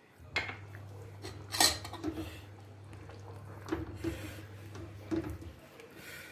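Metal ladle stirring chole in a metal pot, clinking and scraping against the pot about four times, loudest about one and a half seconds in.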